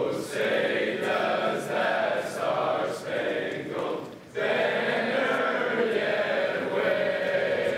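A group of teenage boys singing the national anthem together without accompaniment, with a short break about four seconds in before the singing carries on strongly.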